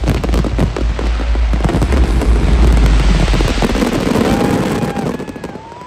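Fireworks display: a rapid barrage of bangs and crackles over a deep rumble, dying away about five seconds in, with a few short whistling tones near the end.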